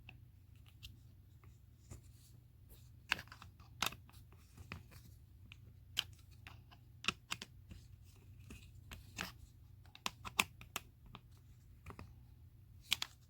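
Irregular clicks and taps of small metal and plastic air-rifle parts and tools being handled and fitted together on a bench, over a faint low hum.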